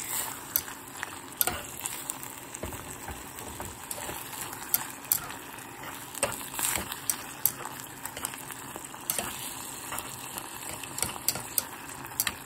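Sliced pork and onions sizzling in a pot with a steady hiss. Tongs turning them click and scrape against the pot many times.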